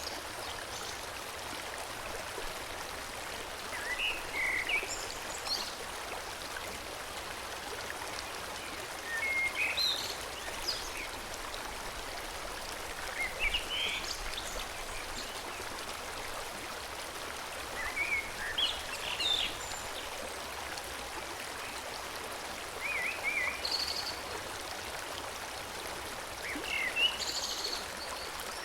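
Steady rush of a forest stream flowing, with short bursts of birdsong chirping over it every few seconds.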